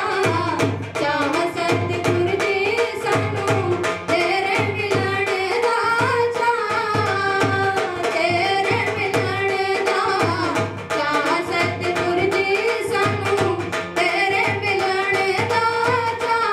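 Devotional kirtan singing with tabla: a voice sings held, bending phrases over a steady, regular drum beat.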